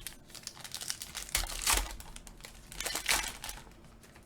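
Trading-card pack wrapper crinkling as it is handled and torn open, with two louder bursts about a second and a half apart.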